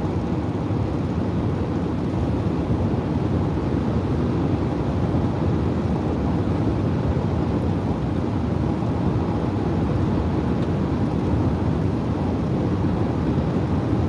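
Steady road and wind noise inside a Town Car cruising at highway speed, an even rumble without changes.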